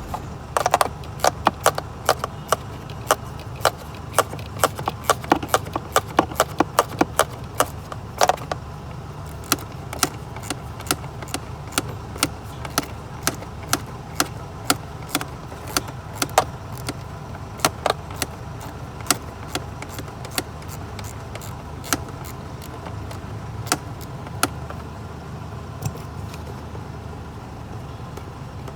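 Hands working at a car's cabin-filter housing: irregular sharp plastic clicks and light knocks, thick and fast for the first eight seconds or so, then about one a second and thinning out near the end, over a steady low hum.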